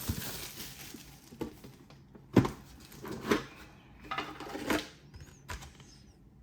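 A metal collector's tin being handled and opened: a few separate knocks and clinks over light rustling.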